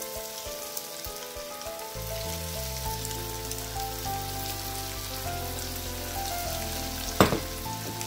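Crumbed chicken pieces frying in hot oil, a steady crackling sizzle as more pieces go in, with background music over it. One sharp pop about seven seconds in.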